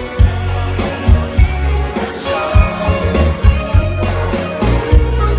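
Live pop band playing through a festival PA: steady drum beat and electric bass with keyboards, and singers' voices over the top.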